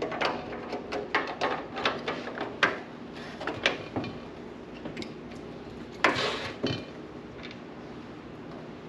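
Metal parts of a propane heater being handled and fitted together: a run of light clicks and knocks, then a louder clatter about six seconds in.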